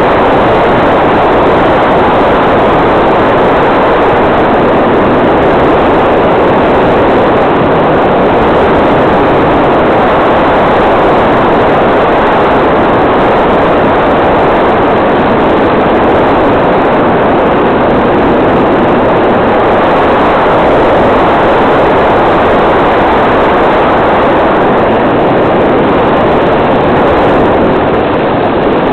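Steady, loud rush of motor, propeller and airflow noise from a 1400 mm radio-controlled L-4 Grasshopper model in flight, heard up close from a camera riding on the plane.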